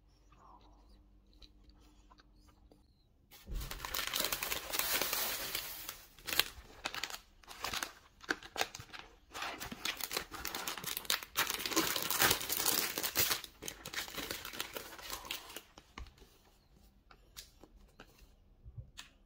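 Thin plastic bread wrapper crinkling and tearing as it is handled and opened. It starts suddenly a few seconds in as a dense run of crackles and dies away a few seconds before the end, leaving a few faint rustles.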